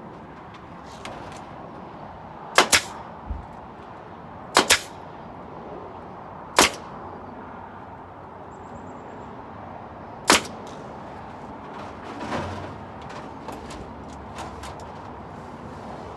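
Sharp single and paired impacts from construction work on a wooden rabbit hutch, spaced a few seconds apart, over a steady outdoor background hiss.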